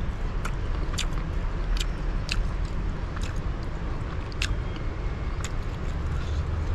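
A man chewing a mouthful of roast rabbit meat close to the microphone: short sharp mouth clicks, irregular, about one or two a second, over a steady low rumble.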